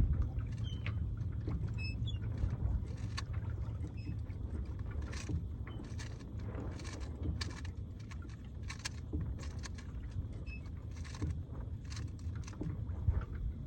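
Rubik's cube being turned quickly, a run of irregular clicks, over a steady low rumble of wind on the microphone aboard a small sailboat.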